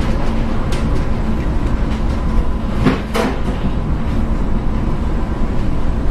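Steady low rumble and machinery hum of a container ship labouring in a heavy storm. A light knock comes just under a second in, then two sharp bangs in quick succession about three seconds in.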